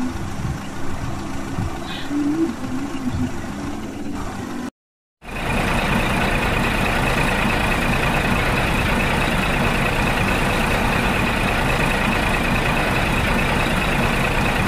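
Land vehicles running, heard in two clips: first a varying engine sound, then, after a cut to silence about five seconds in, a louder, very steady vehicle running noise with an even high whine.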